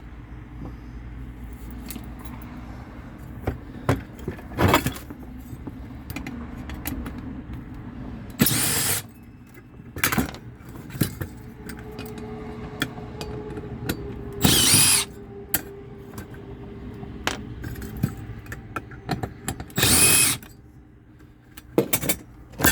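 Power tool running in four short bursts, each under a second, cutting through the seized blower wheel on a furnace inducer motor's shaft, with metallic clicks and handling noise between the bursts.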